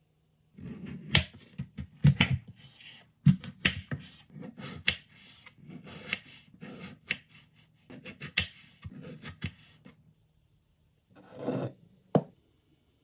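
Kitchen knife cutting and trimming a peeled raw potato on a wooden cutting board: a run of crisp cuts and taps of the blade on the board, with rasping strokes between them. Near the end, a short rustle, then a bottle of olive oil is set down on a stone countertop with a single knock.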